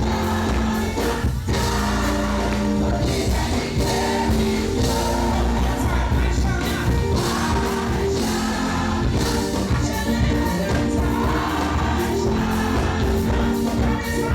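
Live gospel music: a choir and band performing with a strong bass.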